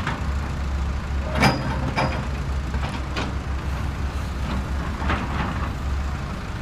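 Plastic toy construction vehicles being worked by hand: scattered knocks and clicks, the sharpest about a second and a half in, over a steady low hum.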